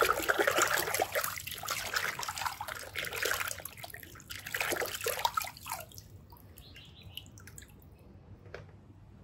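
Hands sloshing and squelching through thick muddy water in a plastic tub, with wet splashing for the first six seconds or so. It then goes quieter, with a few drips.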